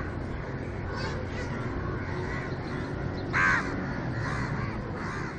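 A crow cawing repeatedly in short calls, one caw much louder than the rest about three and a half seconds in, over steady low background noise.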